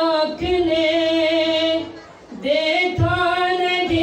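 A man singing a naat unaccompanied, drawing out long held notes, with a short break for breath about two seconds in before the next phrase begins.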